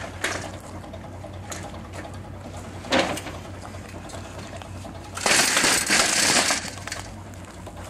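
A long metal beam lowered onto shingle: a short knock about three seconds in, then a loud crunching scrape lasting over a second as it comes down on the gravel.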